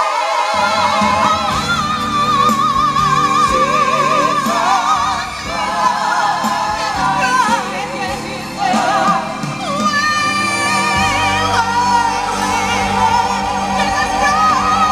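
Gospel choir singing in full harmony, the voices wavering with vibrato. A low accompaniment comes in about half a second in and grows fuller near the end.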